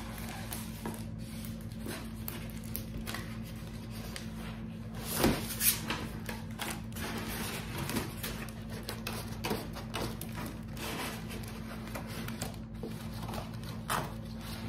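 Rustling and crinkling of a rolled diamond-painting canvas and its plastic cover film being unrolled and handled, with many short crackles and two louder ones about five seconds in. A steady low hum runs underneath.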